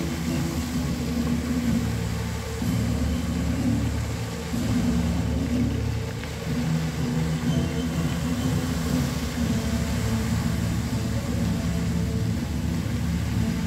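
Music for a fountain show playing over outdoor loudspeakers, low held notes that change every second or so, over a steady rushing hiss from the fountain's water jets.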